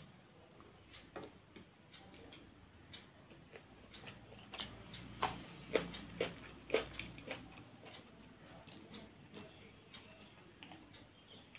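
Close-up eating sounds of a person eating by hand: chewing with wet mouth clicks and smacks, a run of louder clicks about halfway through.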